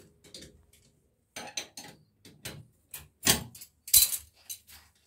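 Metal clinks and clicks of a spanner and pliers on two locked nuts as they are loosened and spun off a threaded sink-mounting stud: an irregular scatter of short, sharp clinks, the loudest about three and four seconds in.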